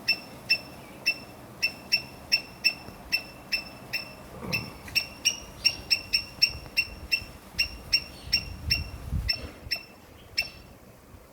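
A bird calling in a long series of sharp, high chip notes, about three a second, thinning out near the end. A brief low rumble comes twice in the middle.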